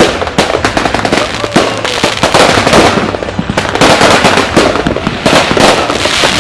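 An aerial fireworks display: shells bursting in quick succession, with many sharp bangs and crackling all the way through.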